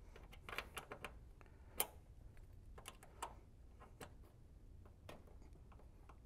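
Faint, irregular clicks and taps of a 4 mm Allen wrench working in the brass service valves of a mini split condenser as the valve stems are backed all the way out, opening the valves to release the refrigerant charge into the line set. One sharper click comes just under two seconds in.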